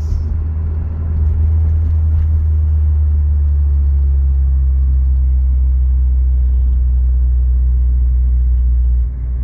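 2006 Honda Civic Si's K20Z3 four-cylinder engine and exhaust running at a steady pace while driving, heard inside the cabin as a low steady drone mixed with tyre and road noise. The level dips briefly near the end.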